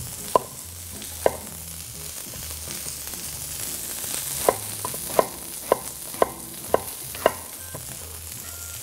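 Vegetable strips sizzling steadily in hot oil in a wok, with a knife chopping zucchini on a wooden cutting board: about eight sharp knife strikes, two in the first second and a run of six from about four and a half to seven seconds in.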